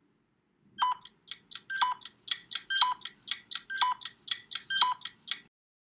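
A ticking countdown sound effect for the quiz pause: light ticks about four a second, with a brighter pitched note once a second on every fourth tick, stopping near the end.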